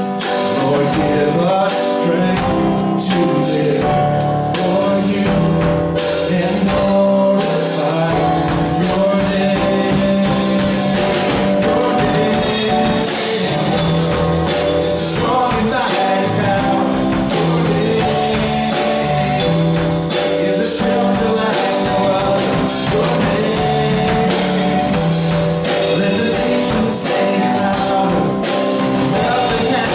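Live gospel worship music: electronic keyboard and drum kit playing steadily, with a man singing along.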